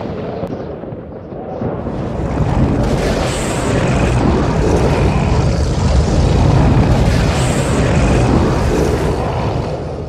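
Movie-style tornado sound effect: a deep, dense roar of wind that swells from about two seconds in and holds loud, with a faint high whine twice over it.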